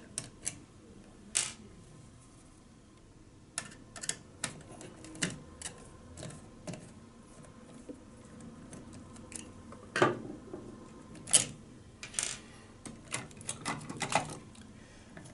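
Small screwdriver working the screws out of a plastic housing, then plastic parts handled, with irregular sharp clicks and knocks, the loudest about ten seconds in and in a cluster near the end.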